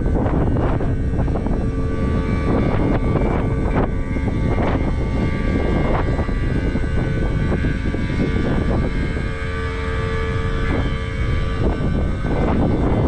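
A large engine running steadily, with wind buffeting the microphone and scattered knocks and clanks throughout.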